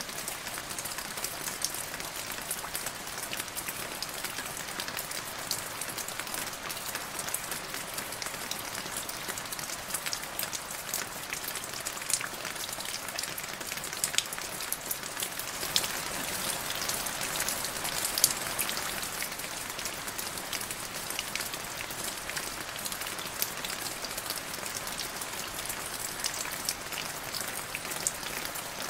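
Steady rain falling into a puddle, with many distinct drop splashes. It grows a little heavier around the middle.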